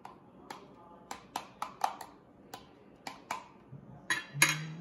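Metal spoon clicking and tapping against a glass bowl as corn is scooped out onto a plate: a dozen or so sharp, irregular clinks. A brief murmur of a voice near the end.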